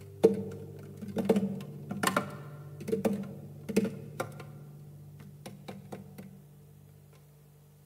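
Classical guitar struck percussively with the right hand: sharp taps about once a second over a low chord that keeps ringing and slowly fades. The taps grow softer and stop about six seconds in.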